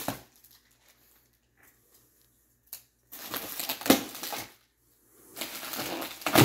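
Plastic bubble wrap crinkling and crackling in bursts as hands dig into it and pull it apart, starting about three seconds in, with one sharp crack near four seconds.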